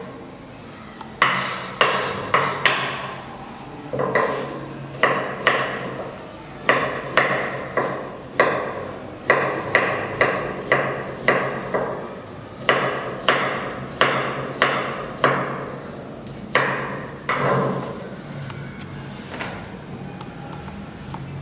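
Chef's knife chopping vegetables on a wooden cutting board: sharp knocks of the blade on the board in quick runs of three or four, dying away a few seconds before the end.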